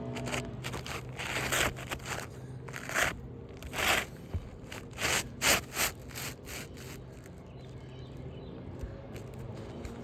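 Asphalt roofing shingles scraping and crackling in a series of short, irregular scrapes as a new shingle is worked into place under the overlying courses, tapering off near the end.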